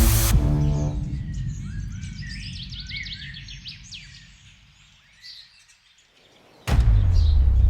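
Electronic music cutting off, its low end dying away, while small birds chirp outdoors. Near the end a loud low rumble starts suddenly.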